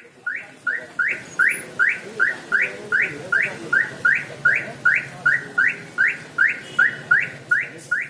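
Aftermarket car alarm siren triggered with its key-fob remote, sounding a fast, even series of short rising chirps, about three a second.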